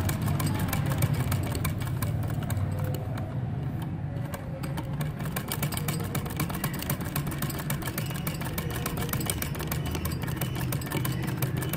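Sewing machine running steadily as it stitches through the cloth: a rapid, even clatter of needle strokes over a steady low hum.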